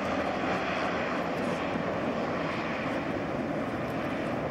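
Propeller airplane engines running, a steady drone.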